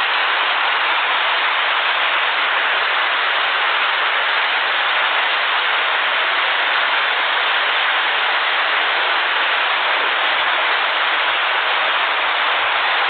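Floodwater rushing: a steady, unbroken hiss of fast-moving water.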